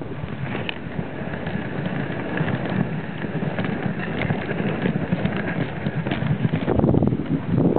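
Dog sled running over a snowy trail: the runners scrape and hiss on the snow while the huskies' paws patter quickly and unevenly, growing a little louder near the end.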